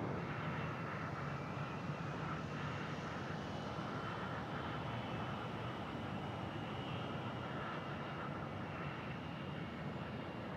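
Jet airliner engines running: a steady rumble with a thin, steady whine on top, easing off slightly toward the end.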